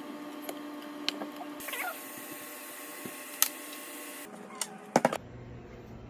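Kitchen tap water running into a pot of raw beef short ribs for a few seconds, over a steady hum, with a few sharp knocks of cookware being handled.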